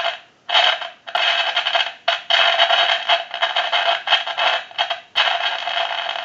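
Crackling static and noise from a Grand desk telephone's receiver, amplified through a telephone test pickup, with the dial tone taken away. It comes in irregular bursts that cut out for short moments several times. This is the phone's fault, the constant crackling its owner reported, and it is very noisy.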